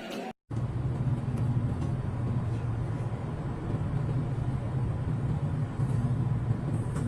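An engine running steadily with a low, even hum, starting just after a brief cut to silence near the start.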